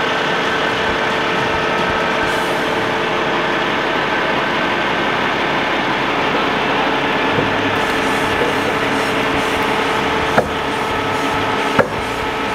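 Crane truck's engine running steadily, with two sharp knocks near the end.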